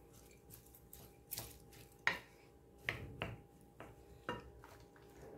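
A wooden spatula stirring cooked rice in a bowl. It gives soft scrapes and half a dozen irregular knocks against the bowl's side.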